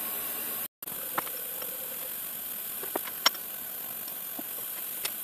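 Steady hiss from the CNC mill's stepper motors, with a few sharp metal clicks as steel step clamps are set on the mill's T-slot table. The hiss drops out briefly under a second in.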